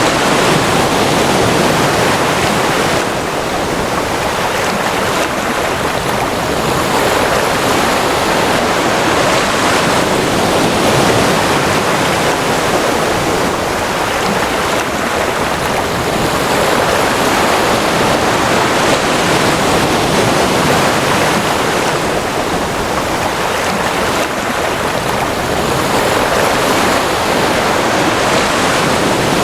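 Ocean waves: a loud, steady wash of surf that rises and falls only slightly.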